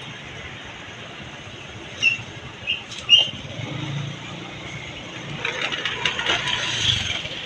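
Road traffic with a large vehicle going by, probably a bus. Three short, sharp, high-pitched sounds come about two to three seconds in, and a louder, rougher stretch of noise near the end as the vehicle passes.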